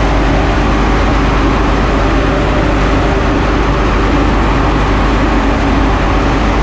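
KRDE diesel-electric railcar running: a loud, steady engine drone with train rumble, unbroken throughout.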